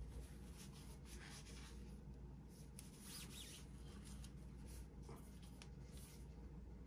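Faint rubbing strokes of a cloth wiping oil off a disassembled shotgun part, in short irregular swipes.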